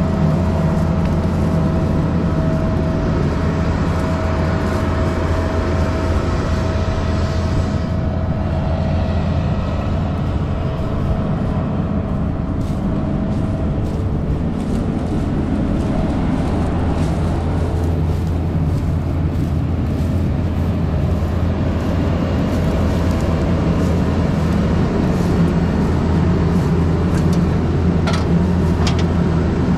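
Combine harvester engine running at a steady speed, a deep constant drone. A few short knocks come near the end.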